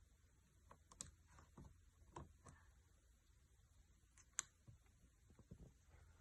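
Near silence broken by a few faint, sharp clicks and taps, the loudest about four and a half seconds in: small parts being handled while flex cables are seated in the connectors of an iPad 2's board and their latches closed.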